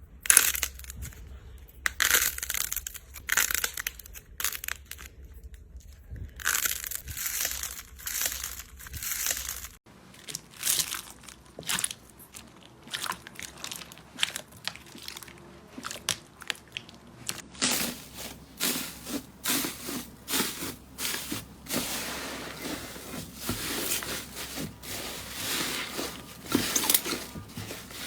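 Slime being squeezed, pressed and poked by hands, giving close-up crunching and crackling sounds. The texture changes abruptly twice, about a third and two thirds of the way through.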